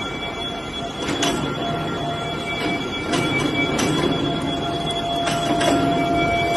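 Steady mechanical noise with a constant high-pitched whine and a few sharp clicks and knocks through it.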